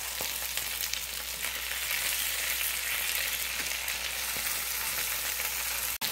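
Floured beef cubes sizzling hard in hot oil in a frying pan over high heat, with a spatula scraping and turning the pieces. The sound cuts out for an instant near the end.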